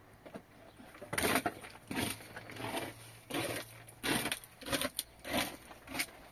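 Wood cracking and crunching in an irregular series of about nine short snaps over six seconds.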